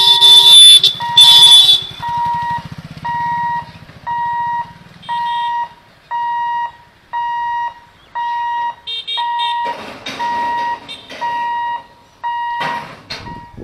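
Level-crossing warning alarm beeping about once a second, each beep a steady electronic tone lasting about half a second, sounding while the boom barriers lower to close the road. It opens with two loud short blasts, the loudest thing heard, over a low engine rumble that fades after a few seconds.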